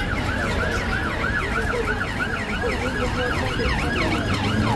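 Emergency vehicle siren on a fast yelp, its pitch rising and falling about four times a second.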